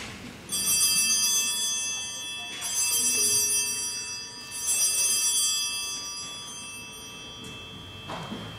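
Small altar bells rung three times, about two seconds apart, each ring dying away slowly: the signal for the elevation of the host at the consecration.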